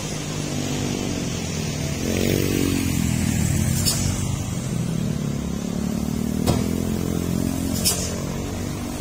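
Heavy truck's diesel engine running slowly under load, with motorcycle engines passing. One engine drops in pitch about two seconds in and climbs again in the second half. A few short, sharp noises break in near the middle and toward the end.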